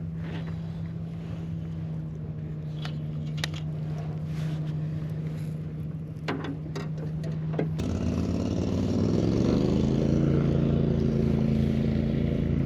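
A boat motor running at a steady low hum, then throttled up about eight seconds in, getting louder and rising in pitch. A few light clicks or knocks are heard before the motor speeds up.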